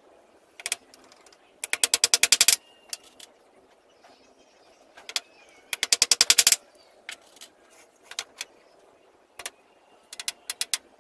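Two rapid bursts of sharp, evenly spaced clicks, each lasting just under a second, with a few single clicks between them, from a hand-held tool fastening the battens of a wooden door frame.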